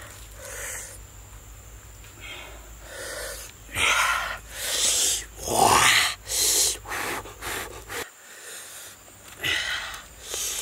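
A man's breathy, wordless vocal sounds: a string of gasps and sharp exhalations, loudest in the middle, with one rising in pitch about five and a half seconds in.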